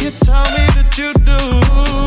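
Background music: a dance track with a heavy, regular bass-drum beat under a melody.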